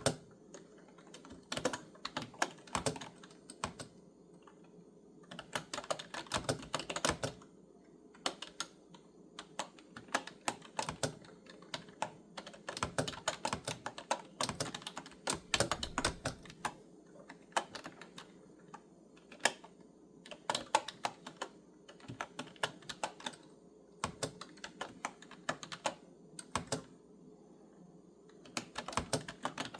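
Typing on a clicky computer keyboard: runs of quick keystrokes broken by short pauses, over a faint steady hum.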